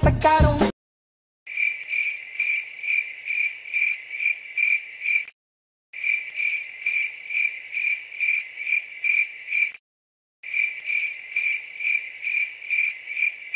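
Music cuts off about half a second in; then a cricket chirps in an even train of high, pitched chirps, about three a second, stopping dead twice for about half a second before starting again.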